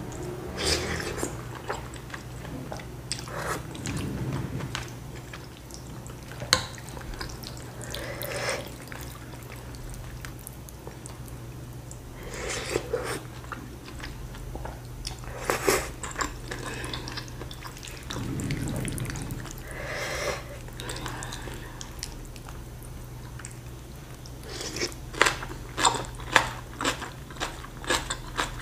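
Close-up eating sounds: noodles slurped in and chewed with wet mouth noises. A quick run of crisp crunches comes near the end. A steady low hum runs underneath.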